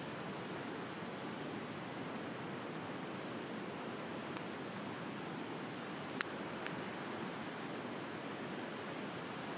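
Steady wash of sea waves with a wood fire crackling over it: a few sharp pops, the loudest a quick double pop about six seconds in.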